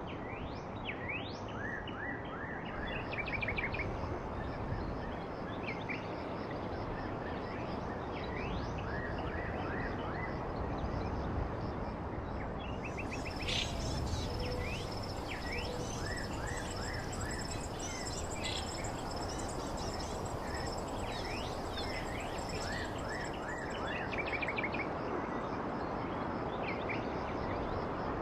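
Outdoor ambience: birds chirping in short repeated calls over a steady background hiss, with a thin high steady buzz joining in about halfway through for roughly ten seconds.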